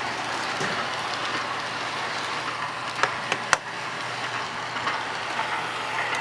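Lionel R-16 model subway train running along the track, a steady motor hum and wheel rumble, with a few sharp clicks about three seconds in.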